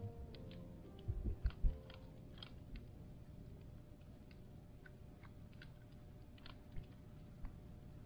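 Scattered soft clicks and taps from a small bird pecking at seed on the snow, with a few low thumps, the loudest cluster about a second in.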